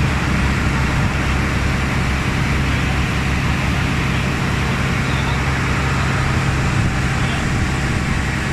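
River ferry's engine running steadily, a loud constant low hum with heavy mechanical noise.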